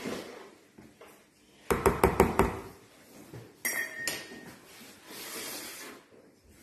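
A spoon knocking quickly against a ceramic mixing bowl, about six sharp taps in a row, then a single ceramic clink with a brief ring as dishes are set down on a steel counter.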